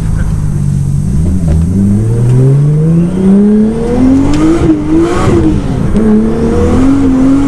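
Skyline GT-R's RB26DETT twin-turbo straight-six pulling hard, its note climbing steadily for about three seconds, then dropping as the throttle is lifted, with a short run of exhaust crackles and pops from the anti-lag-style pop-and-bang map.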